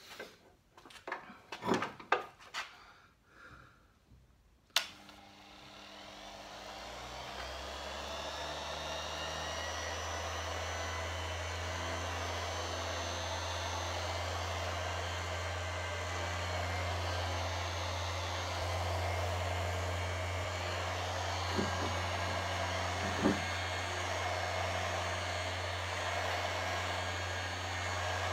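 A few handling knocks and clicks, then a sharp click about five seconds in as an orbital sander with a lambswool buffing pad switches on. Its motor runs up to a steady hum as it buffs wax into a wooden table top, with two short knocks near the end.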